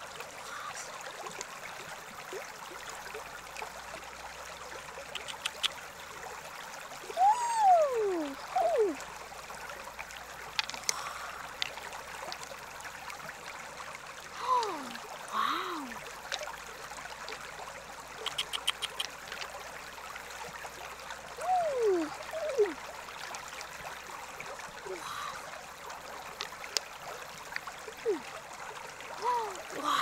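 Water trickling and running steadily. About four times, a pair of short, sharply falling cries or calls rises above it; these are the loudest sounds, and their source is unclear.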